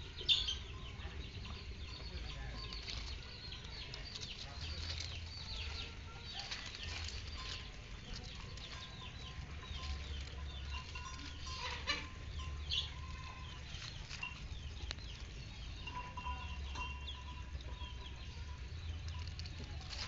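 Lovebird feeding on long grass leaves: scattered short, crisp sounds of the leaves being bitten and rustled, with a few sharper chirps or snaps, over a low steady rumble.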